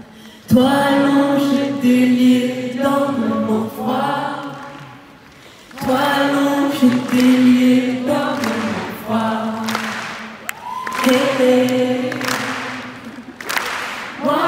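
A woman singing unaccompanied into a microphone, amplified through an arena PA, in long held phrases with short breaths between them.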